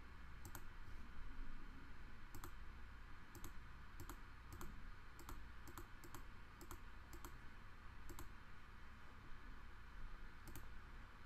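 A computer mouse button clicking about fifteen times at an uneven pace, the clicks coming quickest in the middle stretch. The clicks press keys on an on-screen calculator, stepping down through a menu one press at a time.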